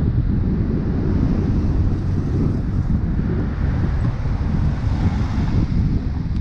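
Steady wind rumble buffeting the microphone of a camera on a moving bicycle, with road traffic passing alongside and a slight swell near the end as a truck comes by.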